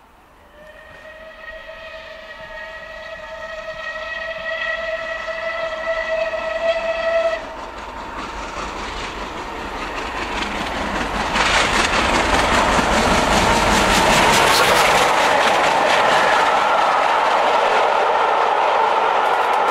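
A steam locomotive's whistle sounds one long steady blast, getting louder, then cuts off sharply after about seven seconds. The locomotive and its train then approach and pass at speed, the noise building into a loud rush of rapid rhythmic beats and rail clatter.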